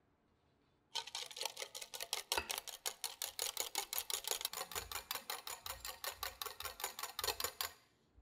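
Metal balloon whisk beating egg white in a glass bowl, a fast, even clatter of wire against glass at about six strokes a second, whipping it into meringue. It starts about a second in and stops shortly before the end.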